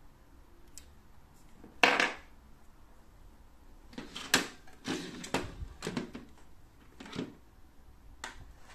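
Handling knocks and clicks from a cauldron-shaped lamp and its lid: one sharp knock about two seconds in, then a run of knocks and scrapes as the lid is lifted off and set down on the table.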